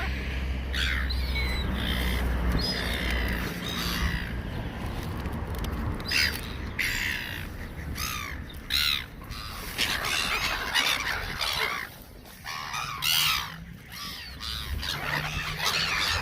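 A flock of gulls squawking, many harsh calls one after another and overlapping. A low rumble runs underneath for the first three seconds or so.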